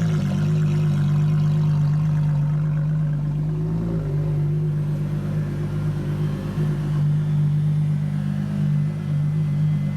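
Ferrari LaFerrari's 6.3-litre V12 running steadily at low revs, a deep even drone with a slight change in pitch about four seconds in.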